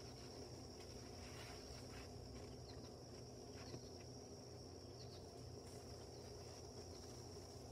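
Quiet background: a faint, steady high-pitched tone over a low hum, with a few faint clicks.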